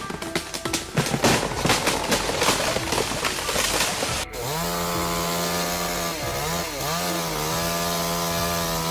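A dense run of cracks and knocks lasting about four seconds. After an abrupt cut comes a chainsaw engine running steadily, its pitch dipping briefly twice as it takes load.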